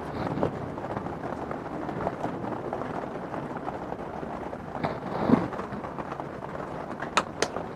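Hands repotting a succulent: soil and pot rustling and scraping, with a louder scrape about five seconds in and two sharp clicks near the end.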